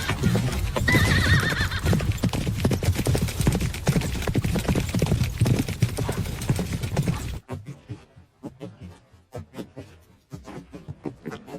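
Horses galloping: dense, rapid hoofbeats, with a horse whinnying about a second in. About seven seconds in the hoofbeats drop off sharply to fainter, sparser ones.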